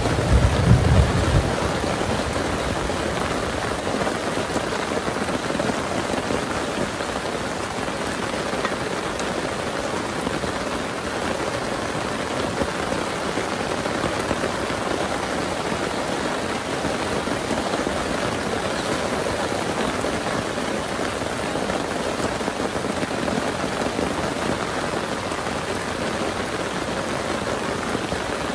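Heavy rain falling steadily, an even hiss of drops. A low rumble dies away in the first second or so.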